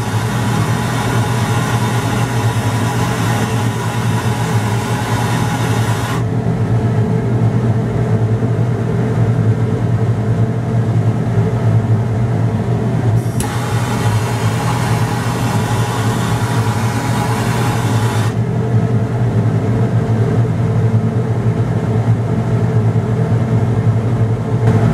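Hissing flame of a handheld torch burning off filter paper in a dish of calcining palladium salt, heard for about the first six seconds, then cut off, then on again for about five seconds from a little past the middle. Under it runs a steady low ventilation-fan hum.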